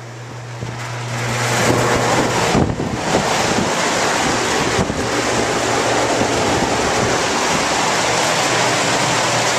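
Large drum fan, about three feet across, running: its airflow rushes over the microphone as loud, steady wind noise, with a low motor hum underneath. It grows louder over the first two seconds and then holds steady.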